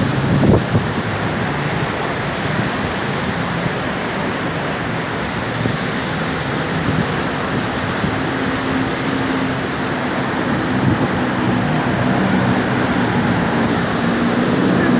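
Steady rush of water at the Iguaçu Falls with wind buffeting the microphone; from about halfway a tour boat's motor adds a low, steady hum.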